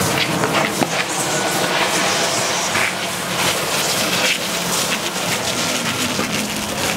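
Heavy truck tire dragged across concrete by a fire hose, a continuous rough scraping rumble with irregular knocks.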